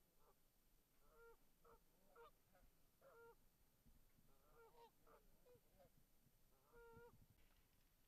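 Canada geese honking faintly: about a dozen short, nasal honks at irregular intervals, several birds calling back and forth.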